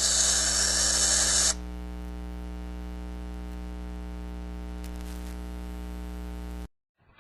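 Steady electrical hum with a stack of evenly spaced overtones, under loud hiss for the first second and a half, then the hum alone until it cuts off abruptly near the end.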